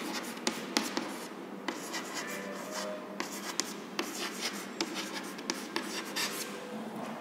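Chalk writing on a blackboard: a run of irregular quick taps and scratchy strokes as letters are written.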